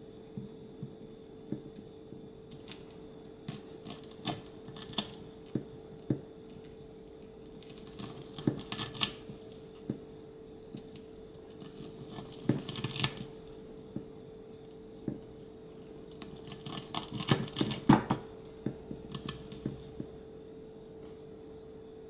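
Miniature knife slicing through a small deep-fried, breadcrumb-coated pork cutlet: crisp crunching of the fried crust in several bursts of crackles, the loudest near the end.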